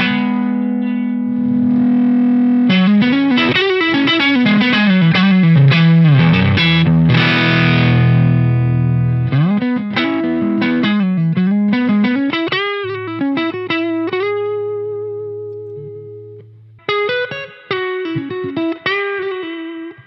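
Overdriven electric guitar with single-coil pickups, played through a Fish Circuits Model One overdrive pedal into a Fender Deluxe Reverb amp and a 1x12 cabinet. It plays strummed chords and single-note phrases with string bends. About three-quarters through, a held note rings and fades, then the playing resumes.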